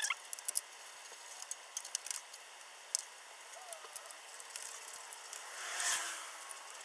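Scattered light clicks and rattles, like small metal parts and tools being handled, with a brief rush of hiss about six seconds in.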